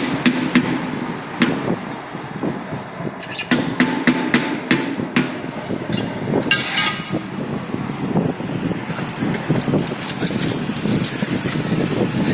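Hand tools knocking and scraping against ceramic wall tiles: repeated sharp taps and clicks, with a quick run of them about three and a half to five seconds in.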